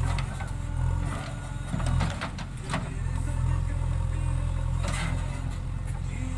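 JCB 3DX backhoe loader's diesel engine running steadily while it digs, with a few short knocks between about two and three seconds in and again near five seconds.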